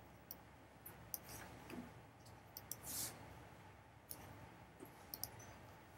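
Faint computer mouse clicks, a dozen or so short sharp ones coming irregularly over quiet room tone, as text is selected and a paragraph style applied.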